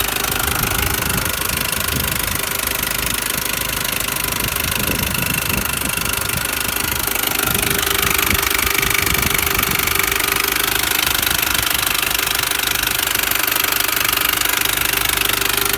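R53 Mini Cooper S supercharged 1.6-litre four-cylinder engine running with a rapid tapping and rattling noise. The engine speed rises slightly about eight seconds in.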